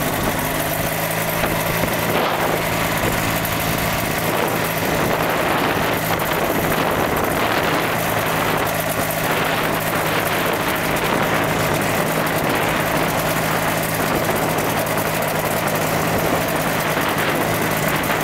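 Engine and propeller of a flying raft boat (an inflatable-hulled ultralight) running at a steady, even speed.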